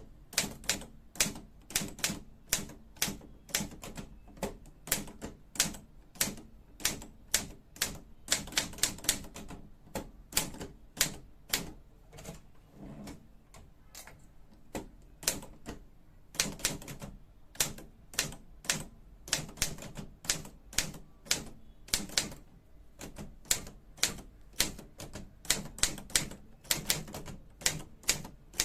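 Olivetti Studio 44 manual portable typewriter being typed on: sharp key strikes, two or three a second in an uneven rhythm, slowing to a few scattered strikes about halfway through before picking up again.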